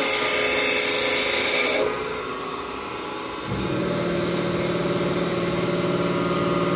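Rebar being ground on a Queen City 12" x 2" pedestal grinder's 36-grit stone wheel, a loud gritty hiss that stops about two seconds in when the bar is lifted off. The grinder keeps running. A second steady machine hum starts up suddenly about halfway through.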